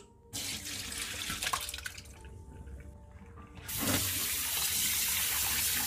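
Iced water poured out of a glass bowl into a plastic colander in a stainless steel sink, splashing for a second or two. About four seconds in, the kitchen tap comes on and runs a steady stream of cold water over the sliced liver in the colander.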